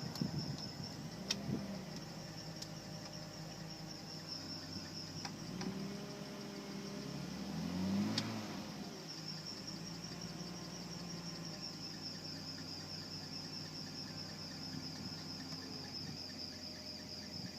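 A BMW E46 330i's straight-six engine idling, revved briefly once about halfway through, with a steady high-pitched warbling squeal over it: the drive belt squeal the car is being checked for.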